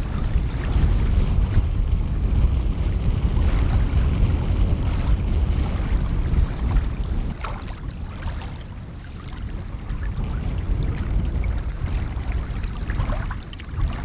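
Wind buffeting the microphone in gusts, a heavy low rumble that eases briefly about eight seconds in.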